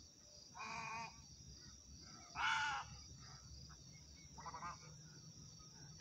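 Egrets calling with harsh squawks: three calls, the loudest in the middle and a shorter stuttering one near the end.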